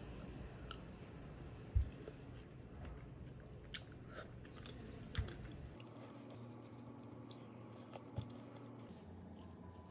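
A person eating melon bingsu, shaved ice with melon: faint chewing and crunching with scattered light clicks, and three soft knocks spread through.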